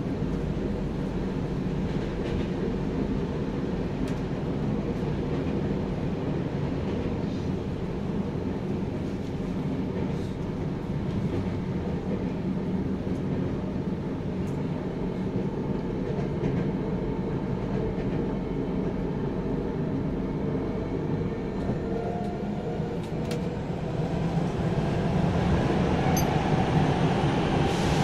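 Tokyo Metro 9000 series train running, heard from inside the car: a steady rumble of wheels on rail and running gear with a few faint clicks, growing louder over the last few seconds.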